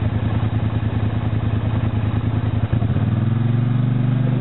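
ATV engine running with a rapid, even pulsing beat, then revving up about three seconds in, its pitch climbing slowly.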